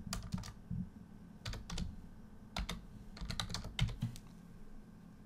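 Computer keyboard keystrokes: irregular clusters of clicks as text is typed, stopping about four seconds in.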